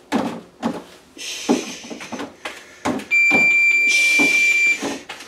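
Bare feet thumping and stepping on an aerobic step in a quick rhythm. About three seconds in, a steady high electronic beep sounds for nearly two seconds, louder than the footsteps, then stops.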